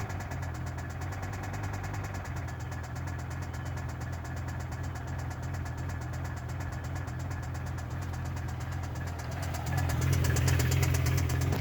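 BMW M5 E60's V10 engine idling with a rapid, even knocking. It gets louder about ten seconds in.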